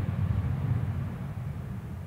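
Boeing 737-800's twin CFM56 jet engines giving a low rumble as the airliner rolls down the runway, fading steadily as it moves away.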